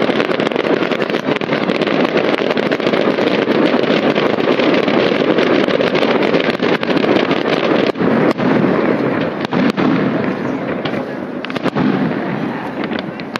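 Aerial firework shells bursting in rapid succession: a dense, continuous rumble of overlapping booms with sharp cracks throughout, easing slightly near the end.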